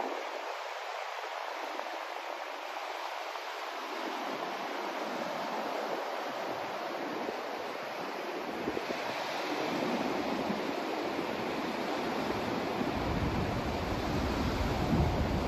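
Continuous rushing white noise, a steady hiss with no tones, slowly growing louder; a deep rumble fills in underneath near the end.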